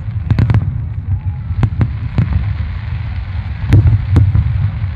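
Aerial fireworks shells bursting: a string of sharp bangs, three in quick succession about half a second in, then more spread out through the rest, over a continuous low rumble.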